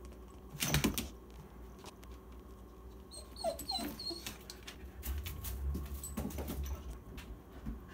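A dog whining and whimpering in short broken sounds, with one louder, sharper cry about a second in and further whimpers around the middle.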